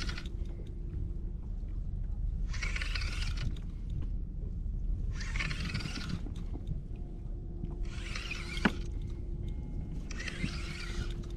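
Spinning reel wound in short spells of about a second, roughly every two and a half seconds, as the rod is jigged, over a steady low rumble. One sharp click about three-quarters of the way through.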